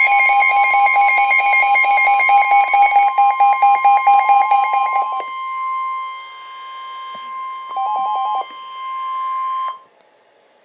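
Emergency Alert System alert tones for a severe thunderstorm warning. A steady single-pitch alert tone is overlaid for the first five seconds by rapid pulsing electronic alarm beeps, and a short burst of beeps returns near the middle. The tone cuts off sharply near the end.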